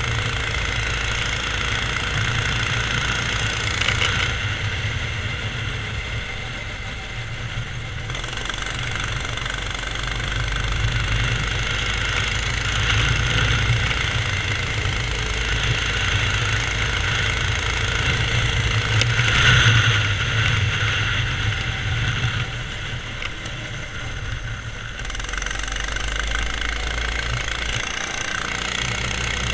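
Go-kart's Subaru EX17 single-cylinder four-stroke engine running while the kart drives, heard from on board. It runs continuously, easing off twice and loudest about twenty seconds in.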